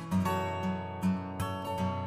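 Background music: an acoustic guitar playing, a new plucked chord or note about every half second.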